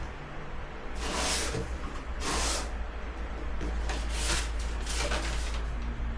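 Packaging being handled: four short rustling swishes over a low steady hum.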